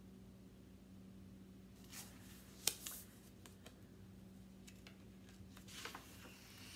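A few short paper rustles and soft clicks as a hardcover picture book is handled and its page turned, the sharpest click about two and a half seconds in, over a faint low hum.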